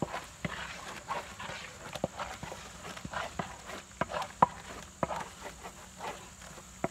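Spatula scraping and knocking against a large metal kadai as a dry, crumbly mixture is stirred, with sharp taps every second or so between the scrapes.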